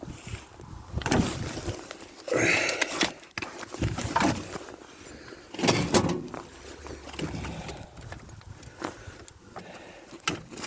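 Clunks, scrapes and rustling from a battery and its cable terminals being handled and fitted into a tractor's battery compartment, in several short irregular bursts with a few clicks near the end.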